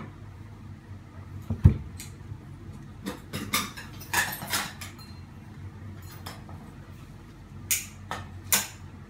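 Metal ceiling fan parts being handled during assembly: scattered clanks and clicks of the motor housing and fittings, with a heavy thump about one and a half seconds in, a run of clatter in the middle and two sharp clicks near the end.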